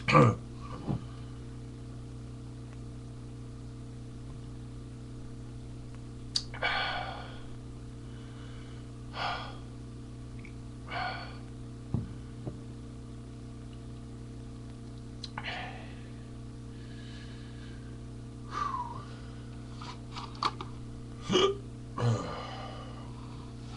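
A string of short, breathy human gasps and exhales a few seconds apart, the loudest right at the start and another pair near the end, with a few small clicks, over a steady low hum.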